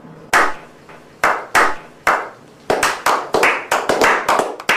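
A slow clap: hands clapping one sharp clap at a time, about a second apart, then quickening into faster, denser clapping over the last two seconds.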